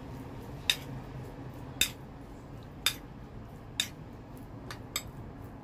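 A metal spoon clinking against a ceramic plate while mixing seasoned raw chicken pieces: about six sharp clinks, roughly one a second.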